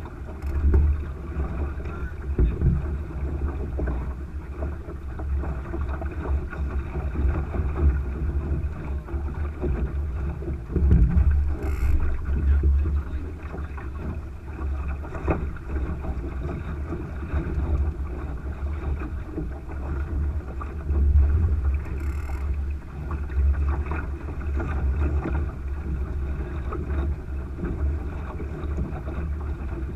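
Wind buffeting the microphone of a camera mounted on a Thistle sailing dinghy's deck, a low rumble that surges and eases, over the steady rushing noise of the hull moving through the water.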